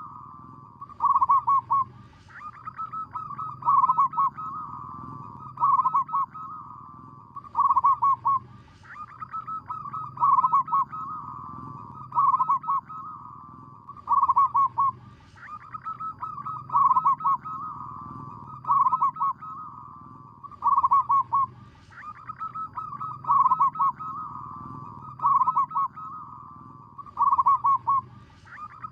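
Zebra dove cooing continuously: rapid, stuttering, pitched notes run into loud phrases that recur every second or two.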